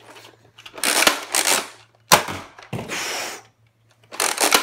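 NERF Rival Atlas foam-ball blaster being worked and fired: plastic clattering of the priming action, with a sharp clack of a shot about two seconds in and more clatter near the end.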